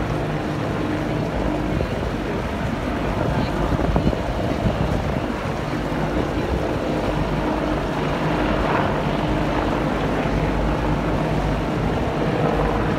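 Military helicopters flying overhead in formation: a steady low drone of rotors and engines, with wind on the microphone.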